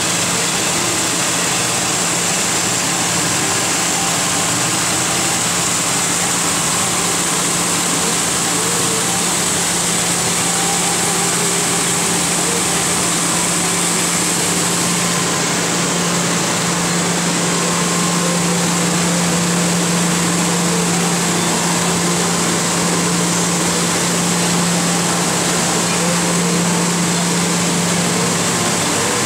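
Abplanalp TFG belt grinder running steadily with its coolant flowing, grinding the face of an aircraft brake pad: a constant rush of noise over a steady low hum, the hum growing a little stronger about halfway through.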